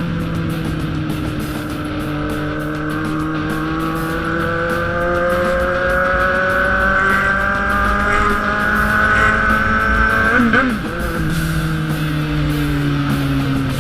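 Inline-four sport motorcycle engine under way, its pitch climbing slowly and steadily as it accelerates, then dropping sharply about ten seconds in and running on at lower revs.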